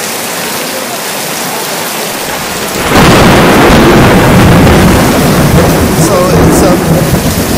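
Rain and hail falling on a canopy roof as a steady hiss. About three seconds in, a loud rumble of thunder breaks and rolls on.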